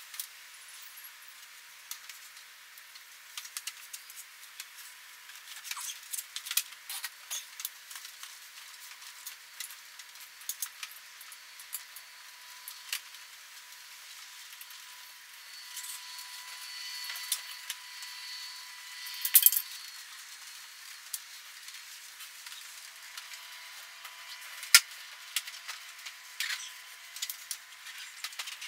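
Scattered clicks, knocks and rustling of the plastic casing of a mini-split indoor unit being handled and hung onto its metal wall mounting plate, with two sharper knocks in the second half.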